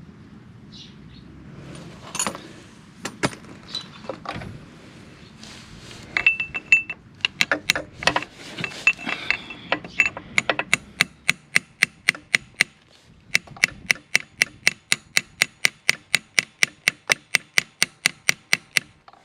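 Metal tools clinking and knocking, then a ratchet wrench being worked in quick strokes, its pawl clicking about four times a second, with one short pause partway through.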